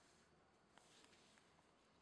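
Near silence: faint background hiss with a couple of faint soft ticks.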